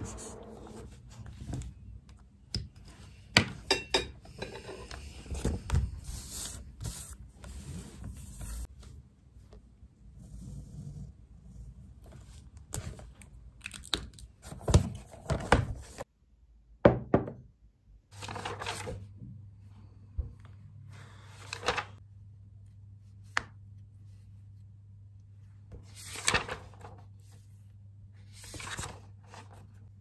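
Study-desk handling sounds: scattered light knocks, taps and paper rustles as books, pens and a highlighter are moved and used on a desk. A low steady hum sets in about two-thirds of the way through.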